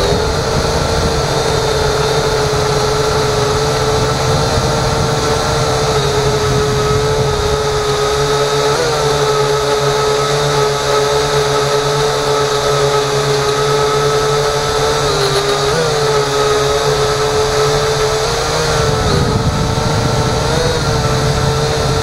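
Small quadcopter drone's motors and propellers whining steadily as it hovers and climbs, heard from the drone's own onboard microphone. The pitch wobbles briefly a few times as the motors adjust.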